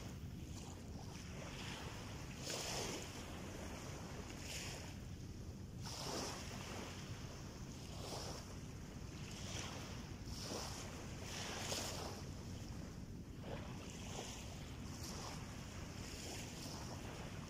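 Small waves lapping on a sandy shore, a soft wash every second or two, over a steady low rumble.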